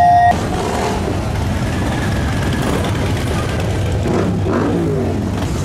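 Motorcycle engines running in a steady low rumble, with one engine revving up and back down about four seconds in.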